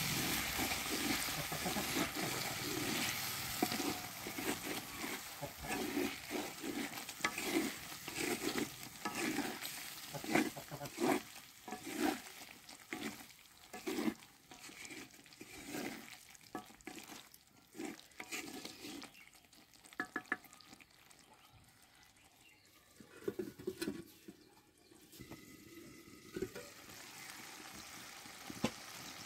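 Wooden spatula stirring chicken curry in a clay pot, with repeated scraping strokes about once a second over the sizzle of the frying curry. The stirring eases off about two-thirds of the way through, with a few last strokes near the end.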